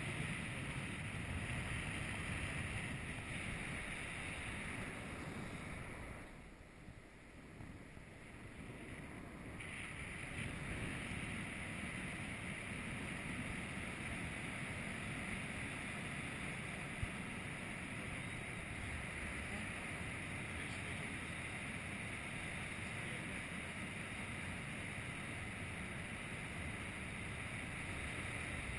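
Steady wind rushing over the microphone of a camera on a paraglider in flight, easing off for a few seconds about six seconds in before building back up.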